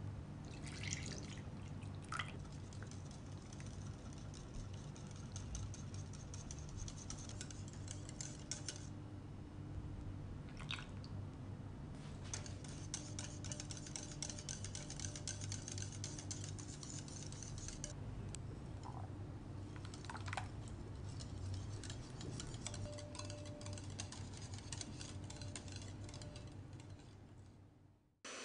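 Cream cheese and milk being stirred in a glass bowl, first with a silicone spatula and then with a wire whisk: quick wet clicking and scraping against the glass, in stretches with short pauses, over a steady low hum. The sound fades out near the end.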